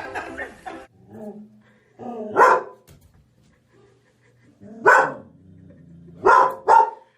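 A dog barking four times: single barks about two seconds apart, then two quick ones near the end.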